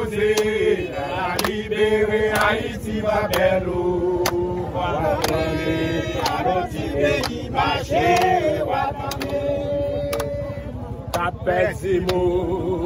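A group of protesters, mostly men, singing a protest song together, with some long held notes.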